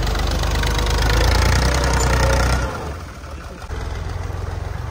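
Al-Ghazi farm tractor's diesel engine running hard as its rear-mounted tine plough is driven into a mound of earth, then dropping to a quieter steady run about two and a half seconds in.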